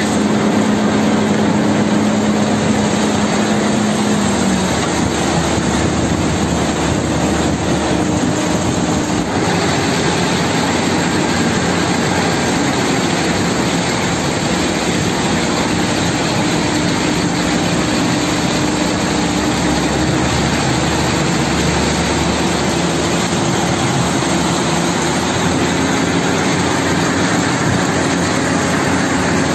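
Hino 500 concrete mixer truck's diesel engine running steadily under load while its drum turns and discharges concrete down the chute into a tremie hopper. The engine hum shifts in pitch about four seconds in.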